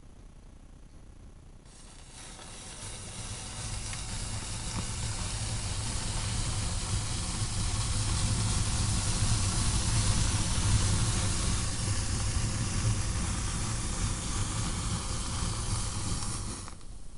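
Thousands of matchstick heads catching fire in a chain reaction: a hissing rush of flame that starts suddenly about two seconds in, swells to its loudest midway, then cuts off abruptly near the end.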